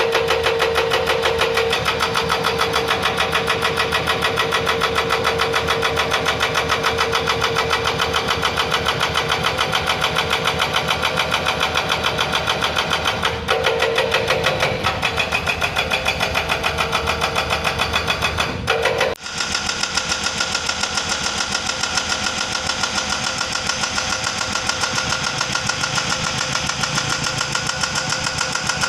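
Excavator-mounted hydraulic breaker hammering in a rapid, steady stream of blows, with the excavator's diesel engine running under it. The sound cuts off about two-thirds of the way through and starts again at once with a different tone.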